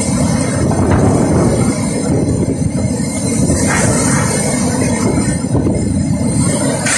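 Cyclone-force wind tearing through trees and buffeting the microphone: a loud, continuous low rumble with hiss from the thrashing leaves and rain.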